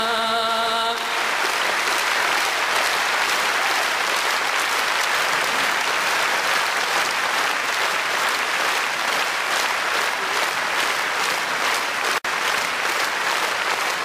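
A man's held sung note ends about a second in, then a large audience applauds steadily, briefly cutting out near the end.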